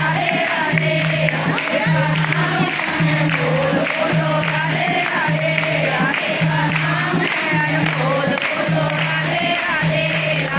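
Devotional bhajan music: voices singing to a dholak drum with jingling percussion, keeping a steady beat.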